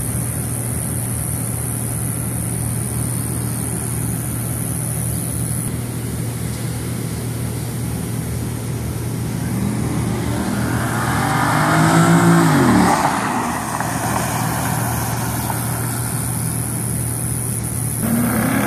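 Cars racing flat out: a steady engine drone under a rising, revving engine note that peaks about twelve seconds in and drops sharply as the cars pass. Near the end a second rising engine note begins as the cars come back toward the listener.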